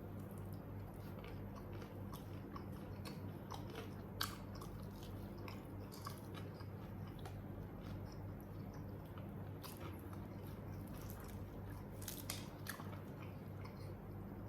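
Close-up mouth sounds of someone eating ayam geprek, smashed fried chicken: steady chewing and biting with crisp crunches, the sharpest about four seconds in and again near the end. A steady low hum runs underneath.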